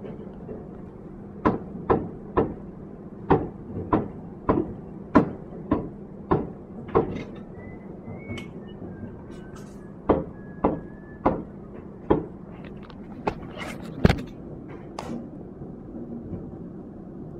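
A series of sharp knocks, irregularly spaced at about two a second and closer together in the second half, over a steady low hum.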